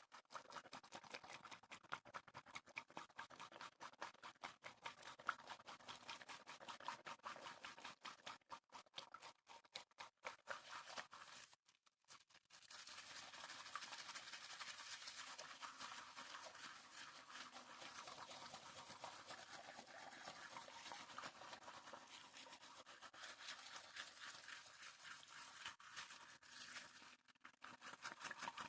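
Faint, fast ASMR water sounds close to the microphone: rapid wet tapping and splashing. They break off briefly about twelve seconds in, then resume as a denser, more even wet patter.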